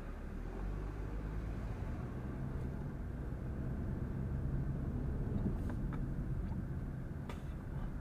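A car pulling away and driving slowly, heard from inside the cabin as a low engine and tyre rumble that grows a little louder midway. There are a couple of faint clicks near the end.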